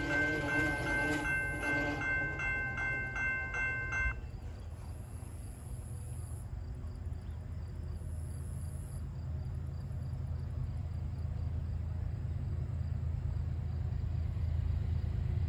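General Signals type 2 electronic crossing bell ringing in rapid, even dings, about four a second, warning of an approaching train; it cuts off suddenly about four seconds in. After that a low rumble builds steadily louder: the train drawing near.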